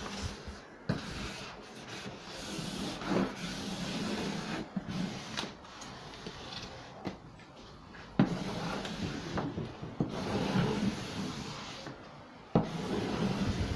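Wallpaper being rubbed and smoothed down by hand onto the wooden back panel of a bookcase, a scratchy rubbing in uneven strokes to press it flat and make it stick. Two sharp knocks against the wood, one a little past the middle and one near the end.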